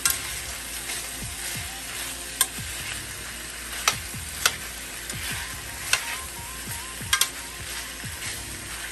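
Sliced smoked sausage and potatoes sizzling steadily in an enamelled pan as they are stirred with a slotted metal spatula. The spatula clicks against the pan about six times, at uneven intervals.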